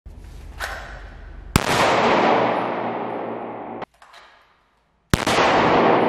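Two pistol shots in an indoor range, about three and a half seconds apart, each followed by a long echoing tail. The first echo cuts off abruptly. A lighter click comes about half a second in.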